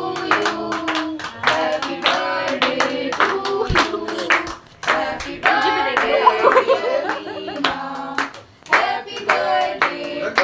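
A group of people clapping in a steady rhythm while singing together.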